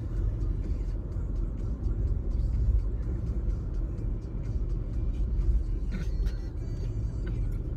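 Cabin noise of a car on the move: a steady low rumble of engine and tyres on the road.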